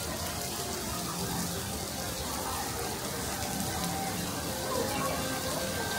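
Downpour from a sudden squall: a steady hiss of rain falling on a wet paved plaza, with faint voices of people in the background.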